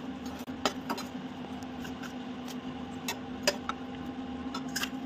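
A perforated metal skimmer clinking and scraping against an aluminium kadai as fried bread rounds are lifted out of the ghee. There are a few irregular sharp clinks, the loudest about three and a half seconds in, over a steady low hum.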